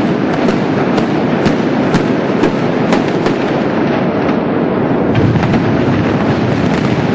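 Demolition explosive charges firing in a rapid string inside a building: a loud, unbroken crackle of blasts, with sharper reports standing out about twice a second.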